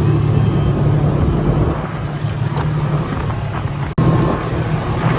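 ATV engine running at a steady pace, easing slightly partway through, with a brief dropout just before four seconds in.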